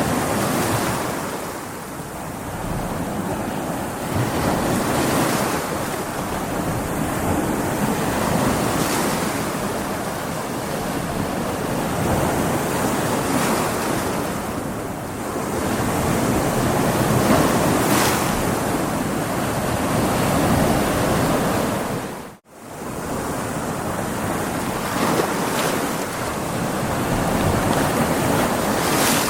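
Stormy sea: heavy waves and surf breaking with strong wind, swelling and ebbing every few seconds. There is a momentary cut-out about three quarters of the way through.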